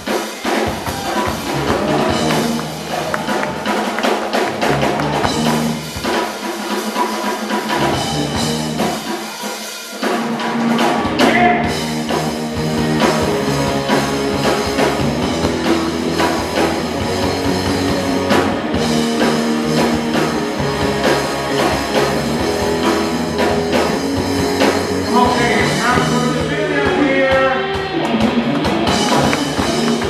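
Live rock band playing an instrumental passage: electric guitars, bass and drum kit. For the first ten seconds the bass and drums stop and start in short breaks, then about ten seconds in the full band comes in and plays on.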